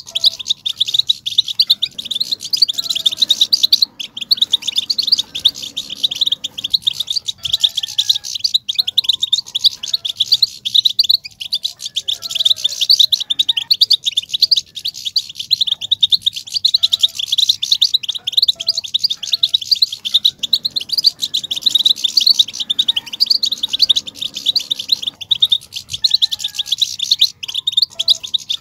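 European goldfinches twittering: a dense, unbroken stream of rapid high chirps and trills, the excited 'batbata' twitter used to stir male goldfinches into song.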